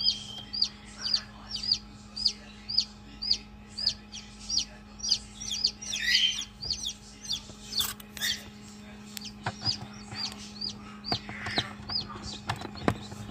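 Wyandotte chick peeping steadily, short high peeps about two a second, over the steady hum of the incubator. The peeping thins out about eight seconds in, and a few sharp knocks follow.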